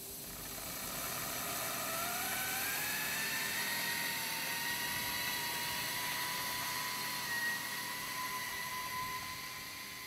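Coving machine's compressed-air shotcreting head running and spraying cement mortar: a whine that rises in pitch over the first few seconds and then holds steady, over a steady rushing hiss.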